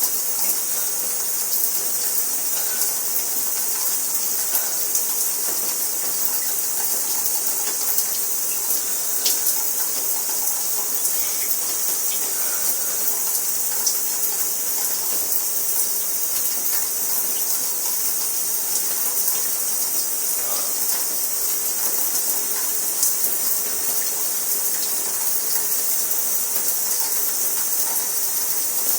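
Shower spray running steadily: an even hiss of water falling, with small scattered splashes and drips.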